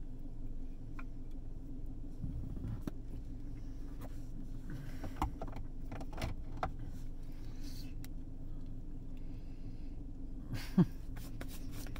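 Steady low hum inside a car, with scattered small clicks and taps of things being handled and one sharper, louder click a little before the end.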